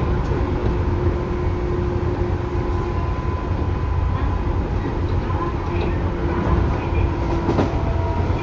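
A Tobu 9000 series electric train running, heard from inside the car: a steady low rumble of wheels on rails with a couple of faint steady tones over it, and an occasional light click from the track.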